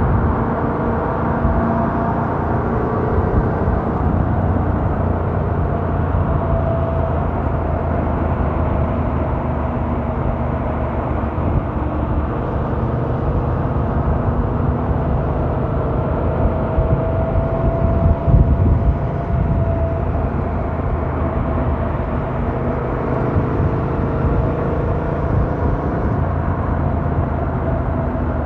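2017 Yamaha MT-07's 689 cc parallel-twin engine on its stock exhaust, running under way with its pitch drifting up and down with speed, over steady wind rush. It is muffled, with a briefly louder moment about two-thirds through.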